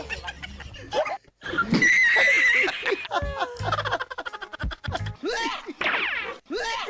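Background music with people laughing and giggling, broken by abrupt cuts; about two seconds in, a high wavering tone.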